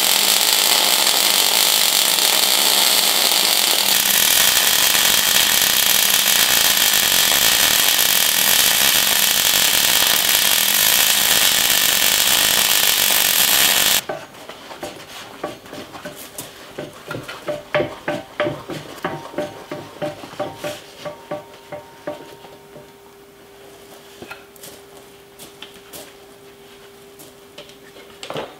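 Arc welding a steel bracket onto an axle housing: a loud, steady welding hiss that cuts off suddenly about halfway through. After it, gloved hands knock and click against the steel parts over a faint steady hum.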